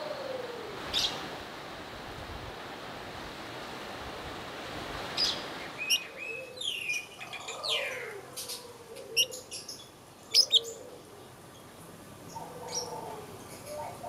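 Fischer's lovebirds chirping: sharp, high-pitched chirps and short falling calls, sparse over a steady background hiss at first, then much busier from about halfway, with the loudest pair of chirps a little after that.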